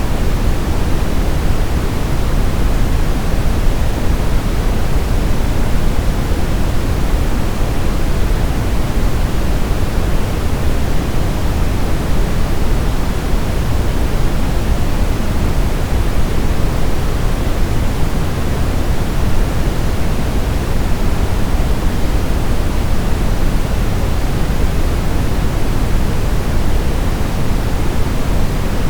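Steady brown noise: an even, unbroken hiss weighted toward the low end, deep and rumbling with little treble.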